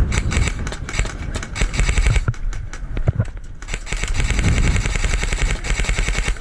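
Airsoft guns firing on full auto: two long strings of rapid, evenly spaced shots with a short break about halfway through, over a low rumble of wind and movement on the microphone.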